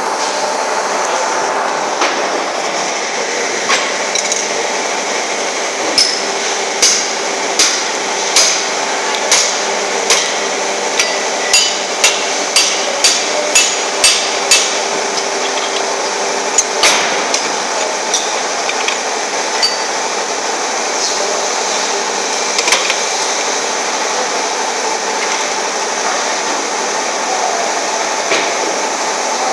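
Metal bar striking metal shoe moulds: more than a dozen sharp, ringing metallic knocks, about one to two a second, then a few scattered ones. Under them runs a steady hum of factory machinery with a couple of held tones.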